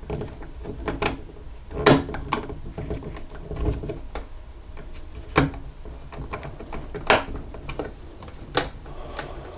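Irregular clicks and taps of a small screwdriver working a screw terminal on a circuit board while the ground wire is fastened into it, with light handling of the wire.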